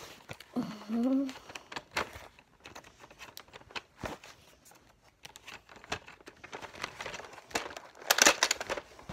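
Plastic packaging crinkling and rustling, with small clicks of handling, as foam Nerf darts are taken out and loaded, loudest in a burst about eight seconds in. A brief hum from the boy about a second in.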